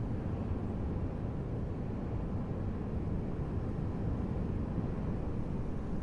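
Steady low rumbling noise with no distinct events: a winter-night ambience bed.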